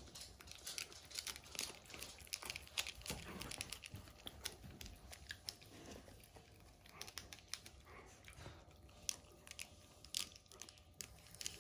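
Dogs gnawing a knotted chew bone held in a hand: faint, irregular crunching and scraping of teeth on the chew.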